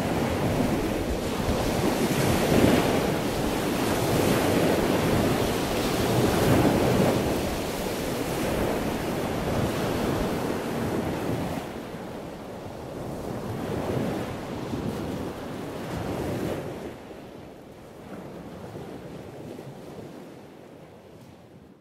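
Sea waves washing in with wind, a steady surging rush that fades out over the second half.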